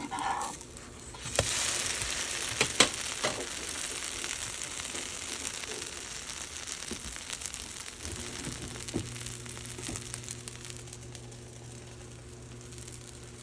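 Wheat dosa batter sizzling on a hot griddle: a loud hiss starts about a second in as the batter goes on, then slowly dies down, with a few sharp clicks near the start.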